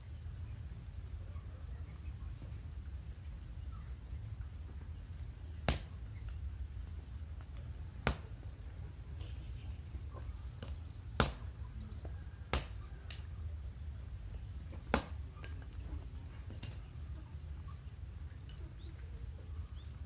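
A machete chopping and splitting bamboo sticks: a handful of sharp, separate chops a second or more apart, the loudest about eleven seconds in. A steady low hum runs underneath.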